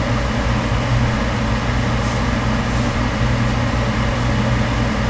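Steady whirring hum of a running fan motor, with a strong low drone under an even hiss, unchanging throughout.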